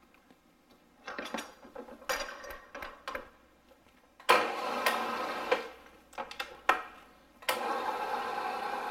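End mill in a Bridgeport milling machine side-cutting the saw-cut end of a 2-inch-thick metal bar to square it. The metallic cutting comes in short bursts from about a second in, then runs steadily from a little past four seconds, with sharp spikes along the way; it breaks off near seven seconds and picks up again right after.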